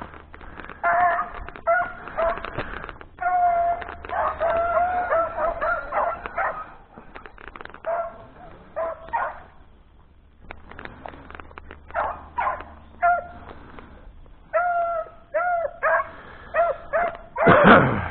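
A pack of rabbit hounds baying as they run a rabbit's scent, with repeated drawn-out calls from more than one dog. The calling comes in bouts, breaks off briefly about ten seconds in, then picks up again quicker toward the end.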